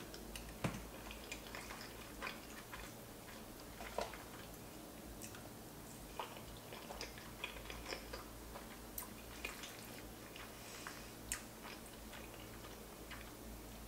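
Close-miked chewing and wet mouth sounds of a person eating soft, creamy pasta shells, with many small clicks and smacks scattered throughout.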